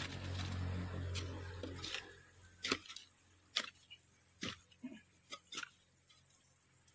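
A short-handled hoe chopping into loose, stony soil, a series of sharp thuds about one a second while palmyra sprouts are dug out. A steady low hum fills the first two seconds and then fades.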